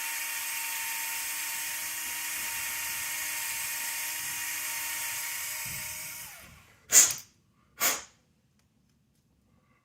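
Small electric drill running at a steady speed, reaming out the bottom hole of an RC buggy hub. It winds down and stops about six seconds in, followed by two sharp clicks about a second apart.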